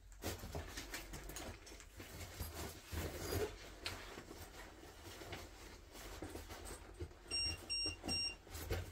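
Faint rustling and small clicks of equipment being handled, then near the end three quick, short, high electronic beeps from a small gadget.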